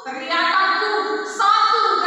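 A woman singing, holding long, steady notes. There is a short break at the start, and new phrases begin about a third of a second in and again past the middle.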